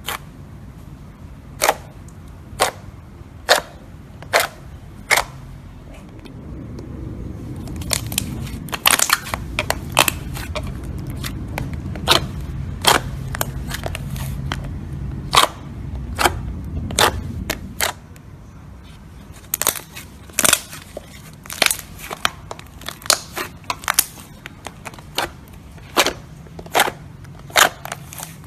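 Slime being pressed and poked by hand, giving a run of sharp pops and clicks of trapped air bursting. They come about once a second at first and in quicker clusters later, with a low steady rumble underneath through the middle stretch.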